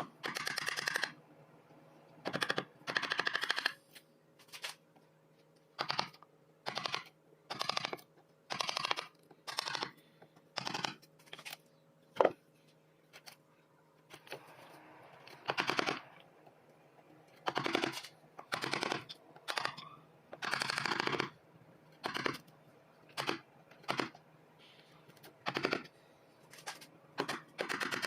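A hand tool worked on wood in short scraping strokes, about one a second with irregular pauses, while a wooden plane handle is shaped. A single sharp click about twelve seconds in.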